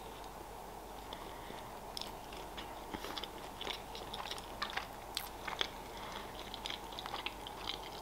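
A person chewing a mouthful of flaky pastry with the mouth closed: soft wet mouth clicks and small crunches, coming more often from about two seconds in.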